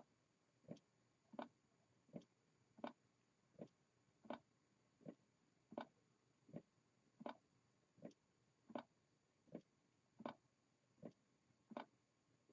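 Hand-made low-temperature-difference Stirling engine running on the heat of a palm, its mechanism giving a faint, steady tick about one and a half times a second, the ticks alternating louder and softer.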